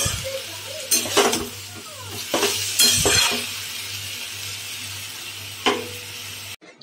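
Cauliflower stalks, leaves and vegetables sizzling as they fry in a wok. A spatula scrapes and knocks against the pan about six times as they are stirred. The sound cuts off suddenly near the end.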